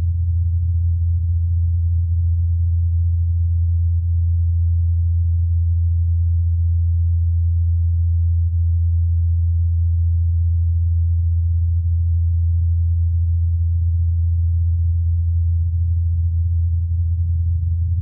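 Ingenuity Mars helicopter's rotors, blades spinning at 2,537 rpm, heard as a steady low hum. The hum is picked up by Perseverance's SuperCam microphone, muffled by the thin Martian atmosphere, and enhanced to bring it out.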